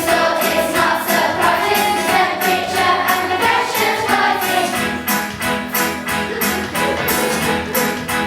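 A song with a group of voices singing a melody over a steady beat, its percussion hitting about twice a second.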